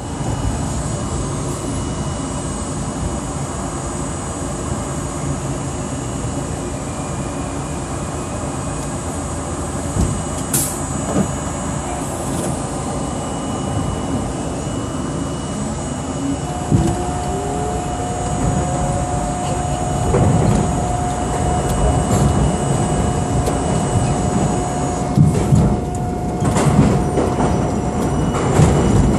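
R32 subway train rumbling slowly into a station and standing at the platform, then pulling away: a motor whine rises in pitch about two-thirds in and settles into a steady tone, with wheel rumble and clatter growing louder as it picks up speed into the tunnel.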